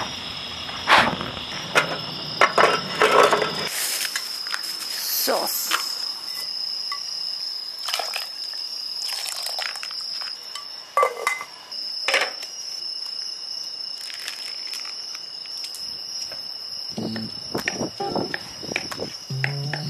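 Crickets chirring in a steady, continuous high drone. Scattered sharp clicks and knocks of things being handled are heard over it, most of them in the first few seconds and again about halfway.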